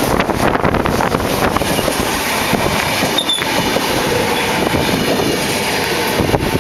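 Renfe electric multiple-unit passenger train passing close by, its wheels clattering over the rail joints in a steady, loud run.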